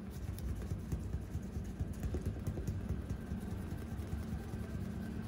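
A blue clay bar rubbed back and forth by hand over lubricated car paint, a gritty scraping with many small irregular clicks as it picks bonded contamination off the paint.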